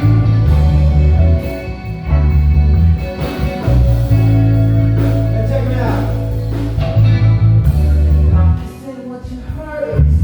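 Live soul band playing: a heavy electric bass line under keyboards, drums and electric guitar. The bass drops out briefly near the end.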